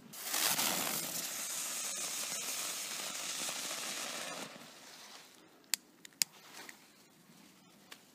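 A small Category 1 firework burning on the ground with a steady rushing hiss. The hiss starts suddenly, lasts about four and a half seconds, then dies away. Two sharp clicks follow about a second later.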